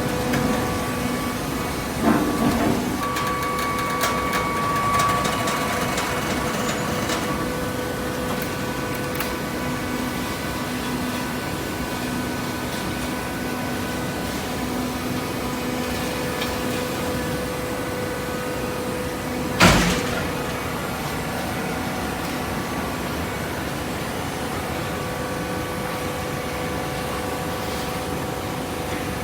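Automatic waste paper baler running, its machinery giving a steady hum with a few light clicks early on, and one loud clank about two-thirds of the way through.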